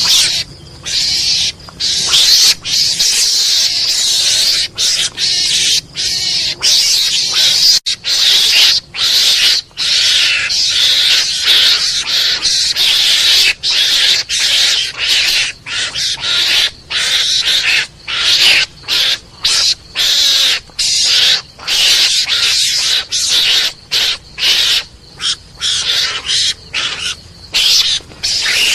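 Mongoose (garangan) lure call: harsh, rasping calls repeated in quick bursts, about two a second, separated by brief gaps. The calls are mostly high-pitched, with little low sound.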